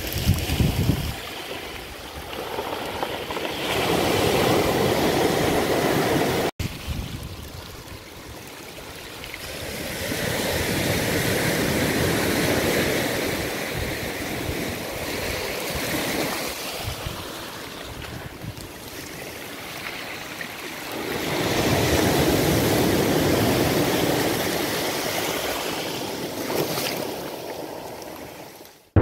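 Small waves breaking and washing up a beach, surging and falling back in slow swells every several seconds. The sound cuts out briefly about a quarter of the way in and fades out at the end.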